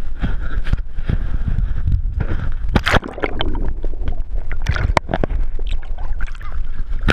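Sea water sloshing and gurgling around a GoPro camera as it is dipped below the surface, with wind rumble on the microphone and several sharp splashes and knocks.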